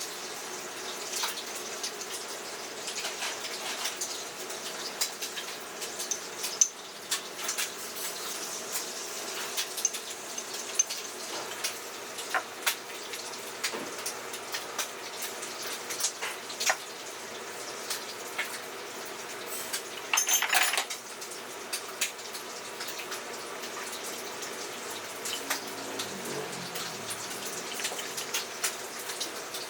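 Kitchen work sounds: a steady rush like running water, with many light clinks and taps of dishes and utensils. One louder, hissing burst comes about two-thirds of the way through.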